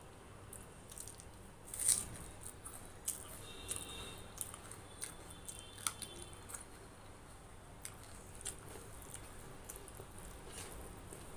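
Close-miked eating by hand: wet squishing as fingers mix and scoop rice with chana masala curry, and chewing with scattered small mouth clicks. There is a crisp bite into a green chili near the middle.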